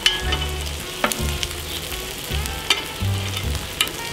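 Steak sizzling on a gas barbecue hotplate, with several sharp clicks of metal tongs as the pieces are lifted off into a dish.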